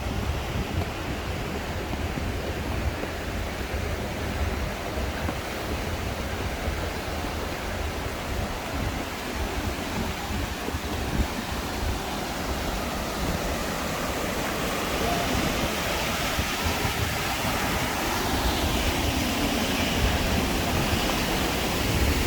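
Steady rush of falling water from the waterfalls and river, with wind buffeting the microphone.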